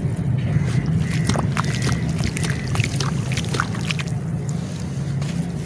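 A soaked block of gritty clay is squeezed and crumbled by hand in a tub of water, giving scattered small crackles and wet splashes, most of them between one and four seconds in. A steady low rumble runs underneath.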